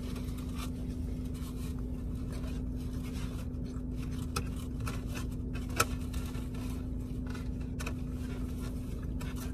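Light scraping and handling noises with a sharp click about six seconds in, over a steady low hum inside a car.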